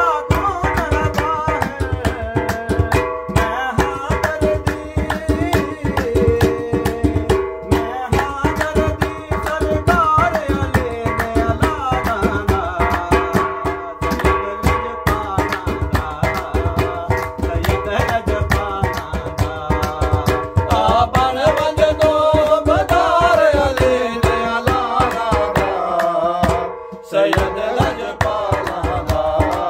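A man singing a devotional qasida, accompanied by hand-drumming on a large metal cooking pot and hand clapping. The music breaks off briefly near the end.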